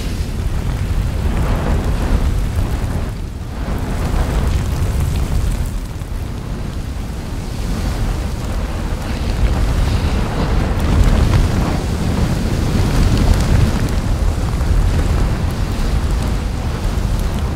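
A volcanic eruption sound effect added in post-production, not the eruption's own sound: a loud, continuous deep rumble with a hiss of noise over it.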